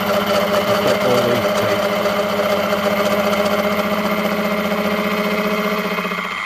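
Small Warco milling machine running with a disc gear cutter cutting a tooth into a bronze gear blank: a steady machine hum with a fast, even chatter. The steady tone stops near the end while the machine keeps running.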